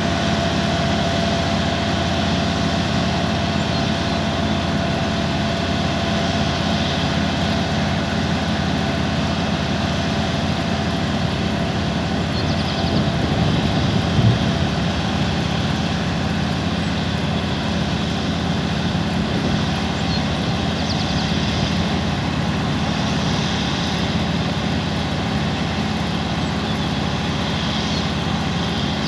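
Heavy farm machinery engine running steadily at an even speed, with a brief louder swell about halfway through.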